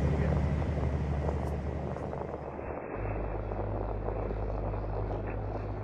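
A steady low drone with a hiss over it, which switches abruptly to a different, deeper drone about three seconds in.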